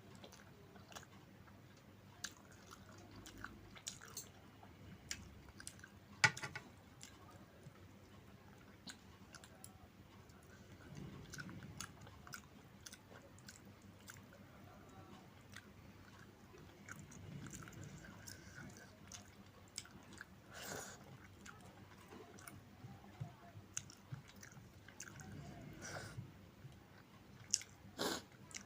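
A person chewing mouthfuls of food, with scattered short mouth clicks and smacks; one sharper click a little after six seconds in and another near the end.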